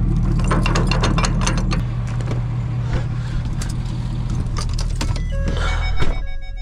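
A pickup truck engine idling with a steady low hum, with metal clinking and rattling over it, most of it in the first two seconds. Near the end there is a short swell of noise and background music comes in.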